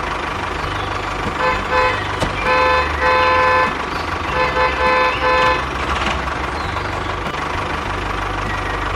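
A vehicle horn honking about five times, short and longer toots between about one and a half and five and a half seconds in, over a steady low engine rumble.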